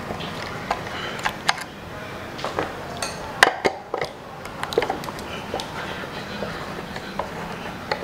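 Small metal clinks, taps and scrapes as parts on an electric water heater's heating-element flange are worked loose by hand. The sharpest clink comes about three and a half seconds in.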